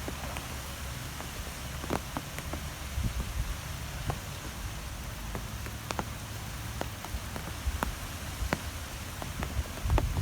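Wind ambience: a steady hiss over an uneven low rumble, with scattered sharp ticks throughout.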